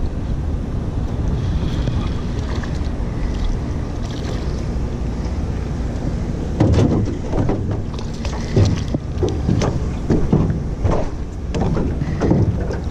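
Steady wind rumble on the microphone, then from about halfway a hooked catfish splashing and thrashing at the water's surface beside the boat in a series of loud bursts.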